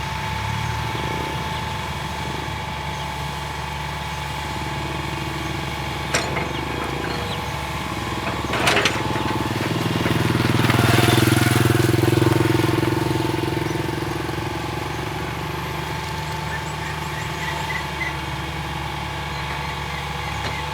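Hitachi EX220-1 long-reach excavator's diesel engine running steadily, with a steady high tone over it. Two sharp knocks come about 6 and 9 seconds in, and the engine loads up and grows louder for a few seconds in the middle before settling back.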